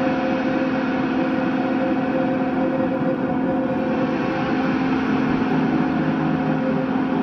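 Noise-music drone from an electric guitar run through a pedalboard of effects and loops: a steady, dense wash of noise with several held tones layered in it.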